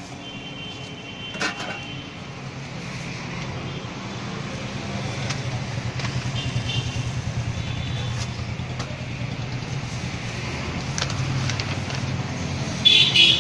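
Steady traffic rumble from the road, swelling through the middle, with a few light clinks. About a second before the end comes a short, loud bout of a metal spatula scraping across the flat griddle.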